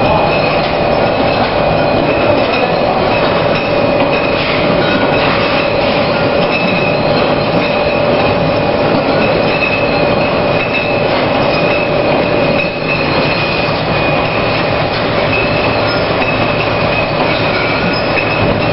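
Rotary self-adhesive bottle labelling machine (a 4000-bottles-per-hour, three-label model) running at production speed with glass bottles on its carousel: a steady mechanical running noise with a constant high whine through it.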